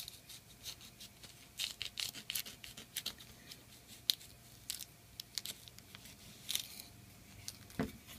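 Knife cutting through the stem and outer leaves of a Romanesco head on a wooden cutting board: an irregular string of short, crisp crunches and snaps, with a dull knock on the board near the end.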